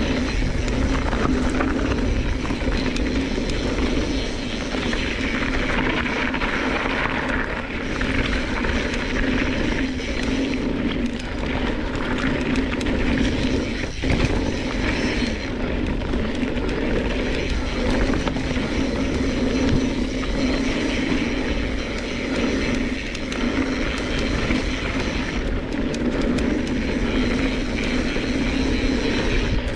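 A mountain bike rolling fast down a dirt trail strewn with loose rock: a steady rushing rumble from the tyres on the ground, with many small clicks and rattles from stones and the bike over bumps.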